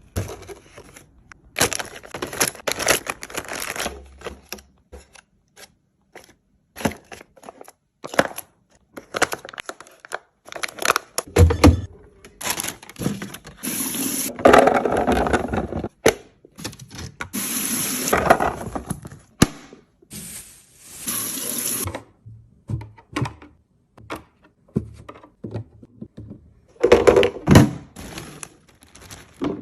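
Drinks and food containers being handled while a fridge is restocked: a run of clicks, knocks and taps, with liquid poured into containers in several stretches of a second or two.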